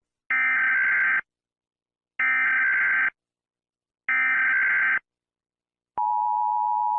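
Emergency Alert System SAME header: three data bursts of about a second each, about two seconds apart. About six seconds in, the steady two-tone EAS attention signal starts, announcing a new alert.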